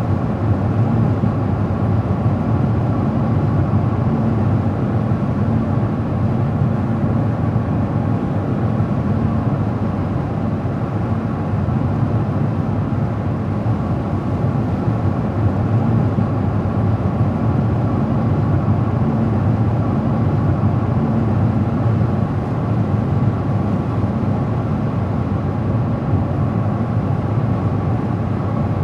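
Steady road noise of a car driving at a constant speed: tyre and engine rumble, mostly low-pitched and unchanging.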